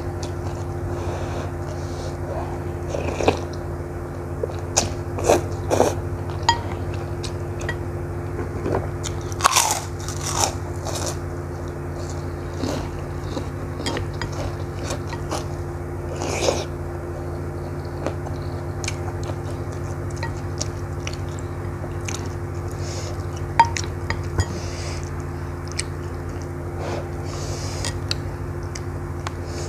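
Close-miked chewing of instant noodles and meatballs, with scattered short wet clicks and smacks, a few of them louder, over a steady low hum.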